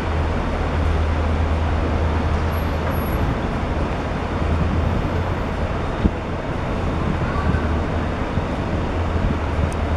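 Demolition excavator's diesel engine running steadily, a low hum under an even noise, with one short knock about six seconds in.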